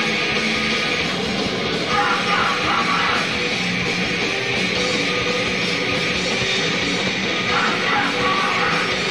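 Recorded hardcore punk: loud distorted electric guitars, bass and drums playing as a dense wall of sound, with shouted vocals.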